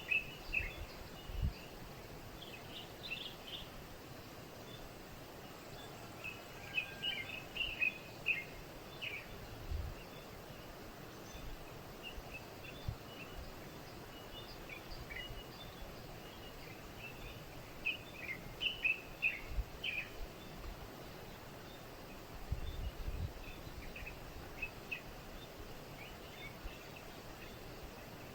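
Birds chirping in scattered clusters of short, high notes over a steady background hiss of outdoor noise. A few brief low thuds come and go.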